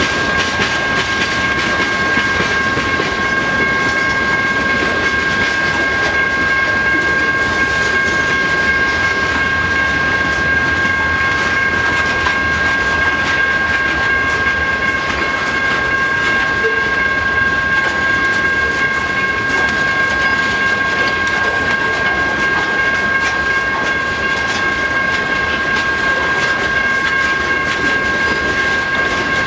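Freight cars of a slow-moving CSX manifest train rolling past, with wheels clicking over the rail joints. A steady high-pitched ringing tone is held throughout.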